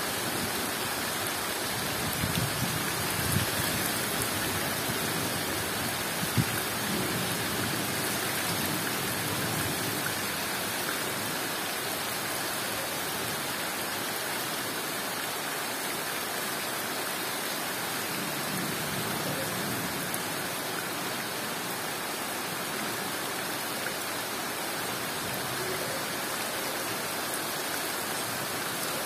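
Steady heavy tropical rain pouring down on dense jungle foliage, an even hiss, with a few brief low thuds in the first seven seconds.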